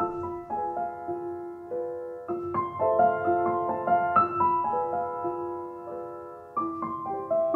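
Background piano music: a slow melody of struck notes left to ring over one another.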